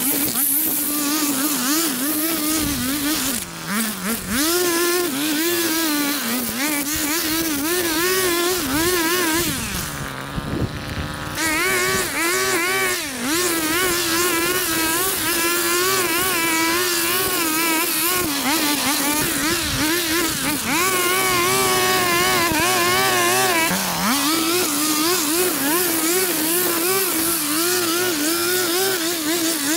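Small petrol engine of power lawn equipment running, its pitch wavering up and down throughout as the engine speed shifts, with a few short dips.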